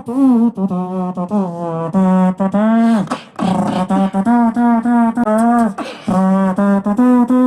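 Beatboxing: a beatboxer hums a song's melody in held and gliding notes while working in kick, hi-hat and snare sounds, so listeners can guess the song.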